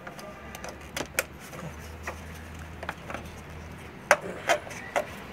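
Scattered clicks and light knocks as a filter removal tool is fitted onto an LPG filter housing, over a low steady hum.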